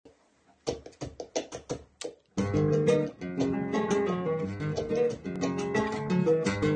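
Flamenco guitar with a spruce top and cypress body playing soleá por bulería: after a moment of quiet, a series of sharp separate chord strokes, then from about two seconds in a continuous stream of fast plucked notes.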